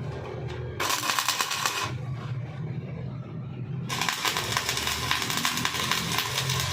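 Stick-welding arc crackling on a root weld. It strikes just under a second in, stops about a second later, then strikes again about four seconds in and runs on, over a low steady hum.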